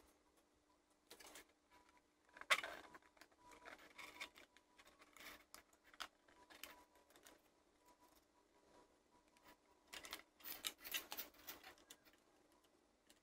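Faint handling noises of a plastic toy casing and its wires: scattered light clicks and rustles, with a sharper knock about two and a half seconds in and a busier patch of clicking near the end.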